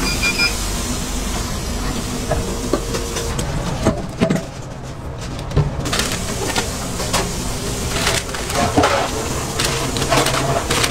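Clicks and knocks of a UFO burger press's metal handles and plates as the sealed buns are taken off, with paper rustling as a burger is wrapped, over a steady background hum.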